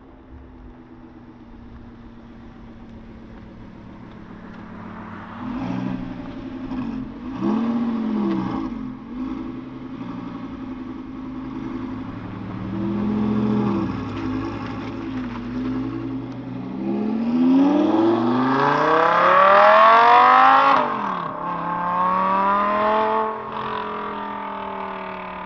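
Audi R8's 5.2-litre V10 engine, first at low revs with its pitch rising and falling a few times, then taken to full throttle about two-thirds of the way in. The engine note climbs steeply, drops at an upshift, climbs again, and fades as the car pulls away.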